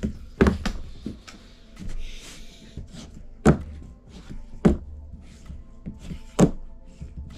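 Wooden fingerboard being ridden and popped on a deck mat: several sharp clacks as the board lands, spread a second or more apart, the loudest three in the second half.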